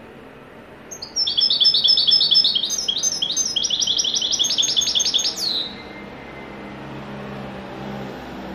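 European goldfinch singing a fast run of evenly repeated high notes, about five a second, in the song style goldfinch keepers call 'haddadi'. It starts about a second in and ends with a falling note a little past halfway.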